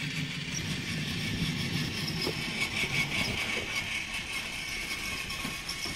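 Battery-powered TrackMaster toy train engines running along plastic track, their small motors and gears whirring steadily.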